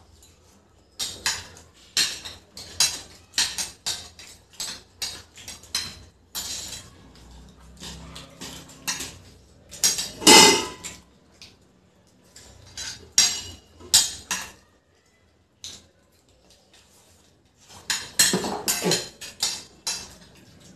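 Metal forks and spoons clinking and scraping against plates in quick, irregular strikes, with one louder clatter about halfway through. The clatter dies down for a few seconds before another flurry near the end.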